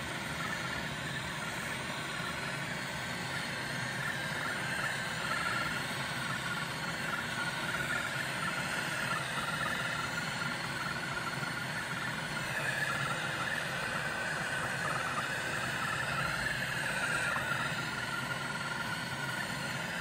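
Handheld gas torch flame hissing steadily while it heats a copper-to-aluminium refrigerator tube joint for brazing with flux-cored aluminium rod. A faint high whistle joins the hiss for a few seconds past the middle.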